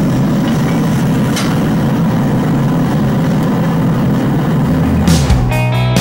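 Gas forge running with a steady low drone. About five seconds in, rock music with guitar comes in over it.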